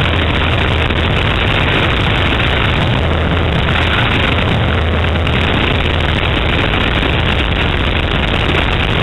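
Steady roar of wind rushing past an open aircraft door, over the drone of a light plane's engine, loud on the camera's microphone.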